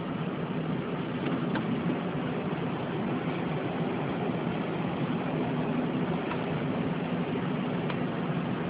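A car's engine running with a steady low hum and road noise, heard from inside the cabin.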